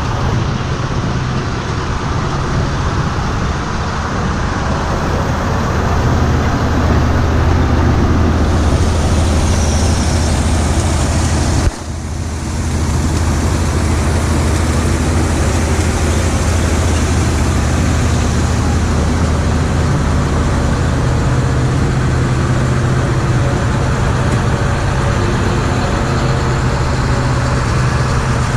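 Bus diesel engine running steadily with a low, even drone. About twelve seconds in it cuts off abruptly and picks up again.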